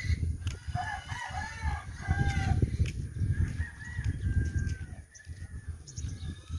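A rooster crowing: one long wavering crow about a second in, with a fainter, higher call following. Underneath is a loud, uneven low rumble.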